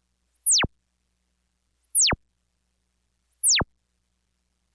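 Pioneer DEQ-S1000A calibration track: a pure test tone sweeping rapidly downward from very high to deep bass, each sweep about a third of a second long. Three sweeps come about a second and a half apart, with silence between them. This is the sequence the processor uses to measure the factory radio's EQ curve and cancel it.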